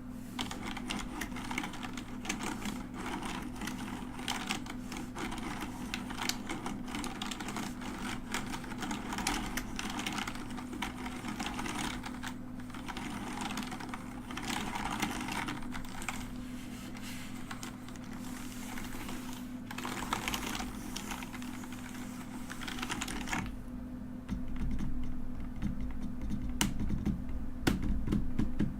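Mechanical keyboard being typed on: a rapid, continuous clatter of key clicks that thins to a few scattered clicks for the last few seconds. A steady low hum runs underneath, and a low rumble comes in near the end.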